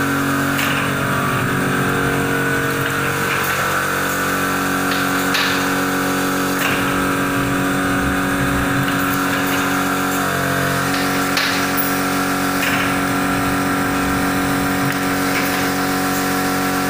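Automatic corrugated-board sheet feeder with pneumatic suction cups running. It makes a steady machine drone, with brief sharp sounds about every one to two seconds as sheets are picked up and fed through the rollers.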